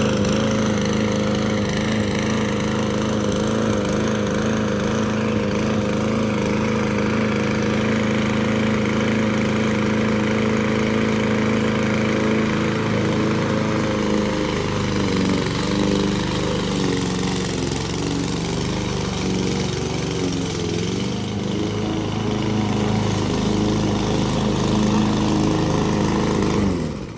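Petrol lawn mower engine running at a steady speed, its pitch wavering up and down through the second half, then stopping suddenly near the end.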